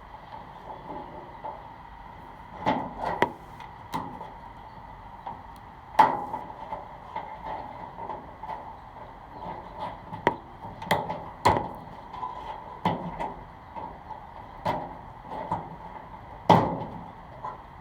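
Irregular sharp clicks and knocks as wire cutters work at a plastic wire connector, cutting the small plastic bridges between its tabs, over a faint steady hum.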